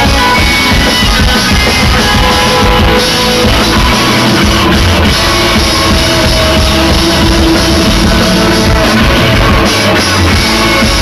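Live rock band playing loud: electric guitars over a drum kit, recorded through a PS Vita's built-in microphone.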